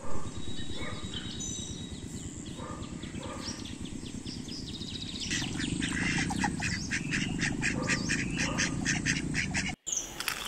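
Domestic ducks quacking as they walk, with scattered quacks at first and a quick run of quacking in the second half. A sudden cut comes near the end, followed by small birds chirping.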